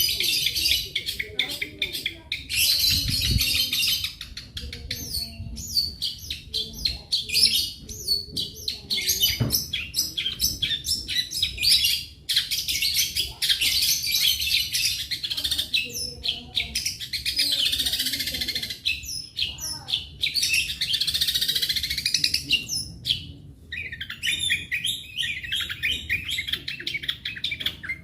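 Long-tailed shrike (cendet) singing a fast, near-continuous run of rapid chirps and trills, with short pauses and some longer sweeping phrases, in the species' mimicking song.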